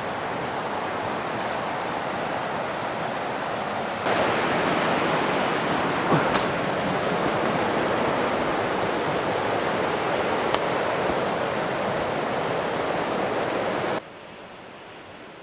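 Steady rushing noise, getting louder about four seconds in, with a couple of faint clicks, and dropping off suddenly about a second before the end.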